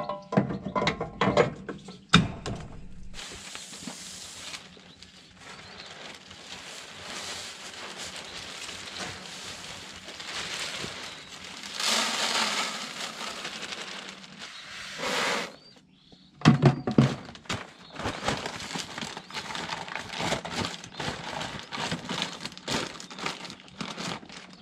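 A few clicks as the seed-meter housing of a planter is shut, then coated sunflower seed pouring and rattling out of a clear plastic bag into a plastic bucket, loudest about twelve seconds in. From about sixteen seconds on, the plastic bag crackles as it is handled and crumpled.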